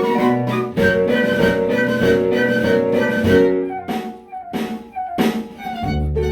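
Instrumental ensemble music: sustained melody notes over a steady beat. The sound thins out and drops in level for a moment past the middle, then a low bass line comes back in near the end.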